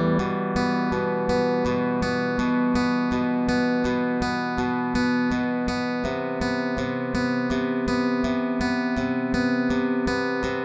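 Background music: a guitar picking a steady run of notes, about three a second, with a chord change about six seconds in.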